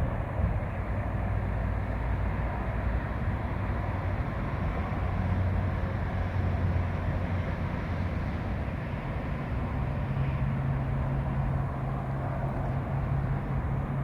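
Steady low rumble of motor traffic with an engine hum whose pitch steps up about ten seconds in.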